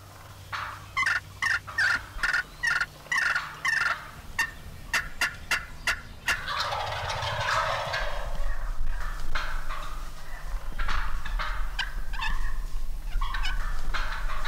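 A flock of wild turkey gobblers calling: a quick run of yelps over the first few seconds, a long rattling gobble about six and a half seconds in, and more yelping near the end.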